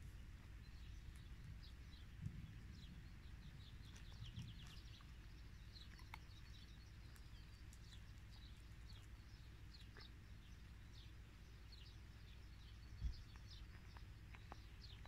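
Faint outdoor ambience: many small birds chirping in the background over a low steady rumble, with a single soft thump near the end.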